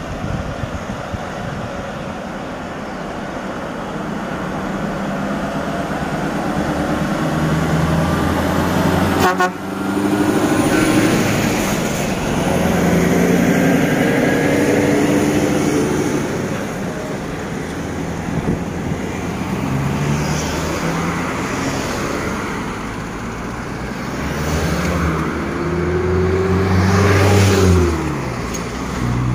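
Heavy truck engine, the V8 of a Scania R580 prime mover, pulling a loaded multi-axle low-loader, its note climbing and swelling as it accelerates past, over steady road and traffic noise. It is loudest twice, a few seconds in and again near the end, with a sharp click about nine seconds in.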